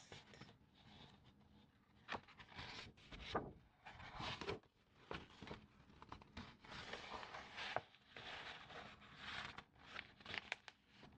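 Tracing and scratching on the paper of an old calendar page: faint, irregular scraping strokes, with a quick run of short scratches near the end.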